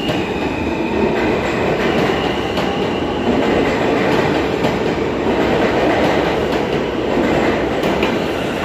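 R160 subway train pulling out of an underground station, its cars running past close by with a steady, loud rumble of steel wheels on rail and faint clicks over the rail joints.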